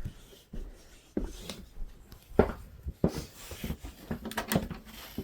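Irregular thumps and knocks of people moving about indoors: footsteps and handling, the loudest knock about halfway through.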